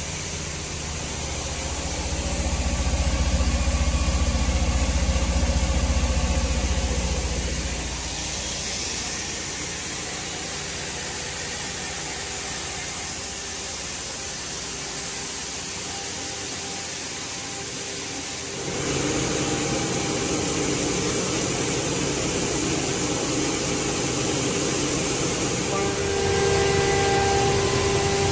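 Plastic pelletizing line machinery running. A vibrating pellet screener shakes with a strong low rumble for the first several seconds, then there is steady machinery noise, which changes abruptly twice to a noise with a few steady humming tones.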